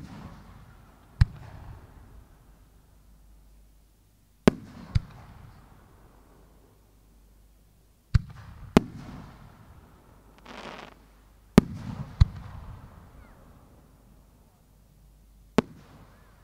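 Japanese aerial firework shells bursting overhead: eight sharp bangs, three of them in quick pairs, each trailing off in a rumbling echo. A short hiss comes a little after halfway.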